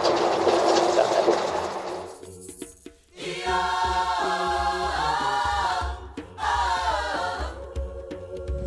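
Wind and engine noise of an open-sided safari truck on the move for about two seconds, fading out, then music with voices singing.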